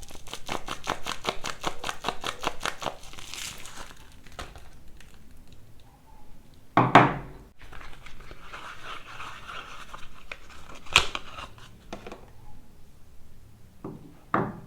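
Soap packaging being unwrapped: a rapid run of crackles for the first few seconds, then softer crinkling and tearing. This is broken by three separate thumps, the loudest about seven seconds in.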